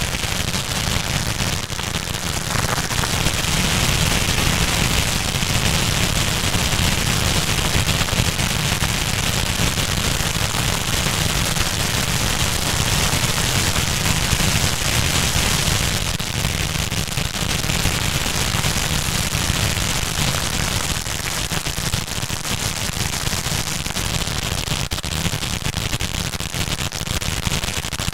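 Pharaoh's Secret fountain fireworks burning: a steady hiss of spraying sparks thick with rapid crackling pops.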